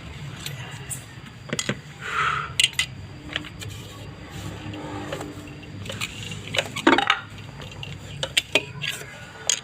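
Scattered metallic clicks and clinks as a refrigerator compressor's parts and tools are handled, over a low steady hum.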